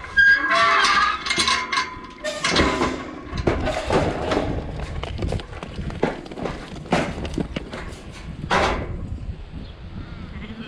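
Sheep moving about in the yards: hooves clattering and many sharp knocks.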